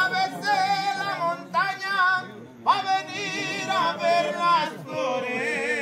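A voice singing long, wavering notes with strong vibrato, in about four phrases; the third phrase opens with a quick upward slide in pitch.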